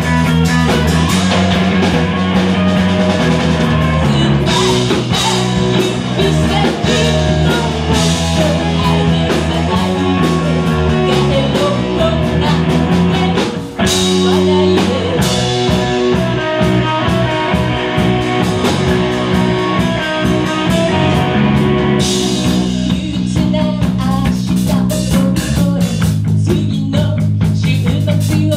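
A live rock band playing loud electric guitars, bass and drum kit, with a woman singing lead. The band stops for a moment about halfway through, then comes back in.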